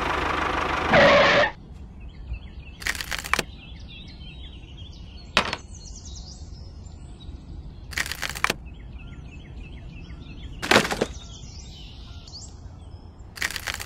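Thin coloured sticks set down one at a time on a toy trolley, five short separate clacks a few seconds apart. Before them, a loud rushing noise stops about a second and a half in.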